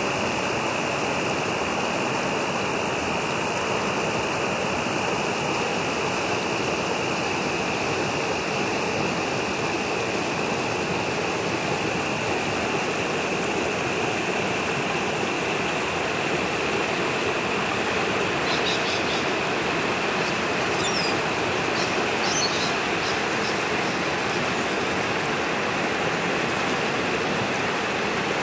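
Steady rushing of the Yarra River's rapids as water pours over rocks below the Pound Bend diversion tunnel outlet. A few brief, faint high chirps come about two-thirds of the way through.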